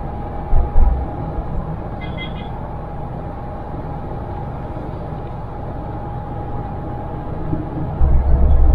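SUV driving, heard from inside the cabin: steady road and engine noise with a faint steady whine. Low thumps come about half a second in, a brief faint beep about two seconds in, and a loud low rumble sets in near the end.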